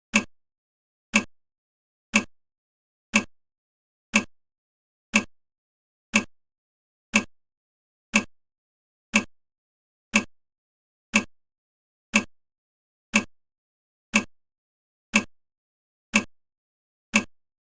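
Countdown timer's ticking sound, one sharp tick every second with dead silence between.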